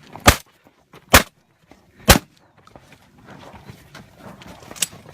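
Three shotgun shots fired in quick succession, a little under a second apart, then a quieter sharp crack near the end.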